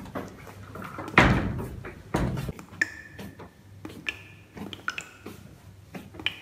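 A door bangs shut about a second in and rings on in a tiled washroom, followed by a second duller thud. After that come scattered light clicks and a few short high squeaks.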